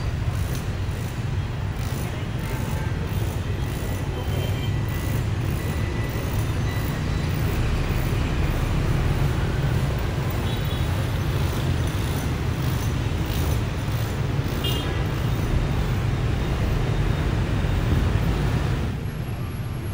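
Dense city road traffic heard from the open top deck of a moving double-decker bus: a steady low rumble of the bus engine and the motorbikes and cars around it, easing off a little near the end.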